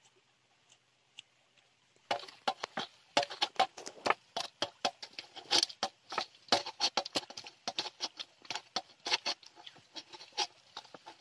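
Wet tandoori marinade paste being squished and mixed by hand in a stainless steel bowl: a rapid, irregular run of squelches and clicks that starts about two seconds in.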